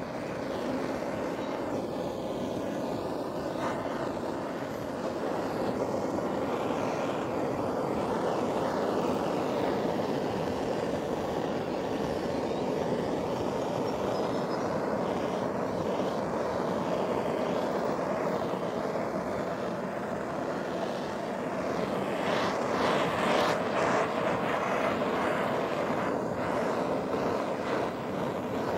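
Handheld air-blowing power tool running steadily, its nozzle worked over the carved wooden surface; it gets louder and hissier for a few seconds near the end.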